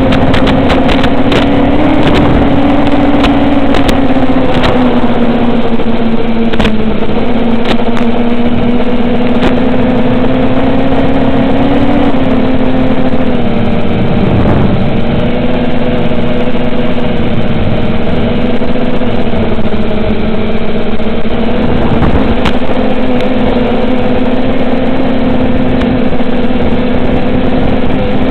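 Electric motors and 7-inch two-blade propellers of an FPV quadcopter (Avenger 2508 1750kv motors on 4S) running steadily in flight, a constant drone whose pitch wavers slightly with throttle. Sharp clicks and crackles come through, most often in the first several seconds.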